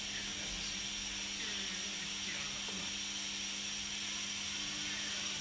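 Steady hiss with a faint low hum underneath, even in level throughout: the background noise of the voice-over recording.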